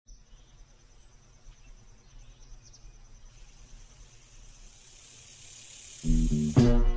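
Faint insect trill, a steady high pulsing chirp over a soft hiss that grows slowly. About six seconds in, loud music starts suddenly.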